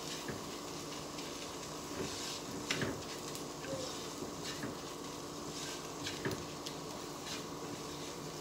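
Onions and garlic frying with ground spices in a nonstick wok, a faint steady sizzle, with a spatula scraping and tapping against the pan in scattered clicks as they are stirred.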